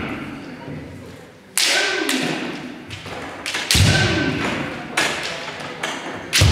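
Kendo practice: bamboo shinai cracking on armour together with stamping foot thuds on a wooden gym floor, four sharp impacts a second or two apart, each echoing through the large hall. The second and fourth carry a heavy low thud.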